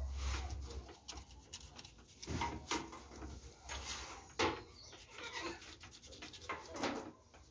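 Knife scraping and cutting at an armadillo carcass's skin, in irregular short strokes, with one sharper stroke about halfway through.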